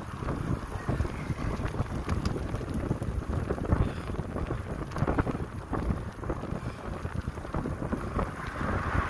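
Wind buffeting the microphone of a phone mounted on a moving recumbent cycle, a gusty low rumble with frequent small knocks and rattles.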